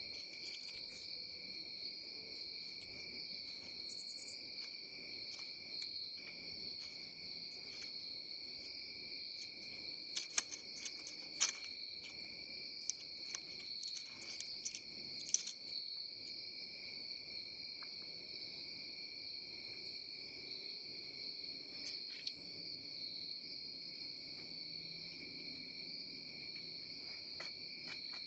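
Crickets chirring steadily in a night chorus. From about ten to sixteen seconds in, a run of sharp clicks and crunches, the loudest sounds, as an opossum feeds at the seed tray.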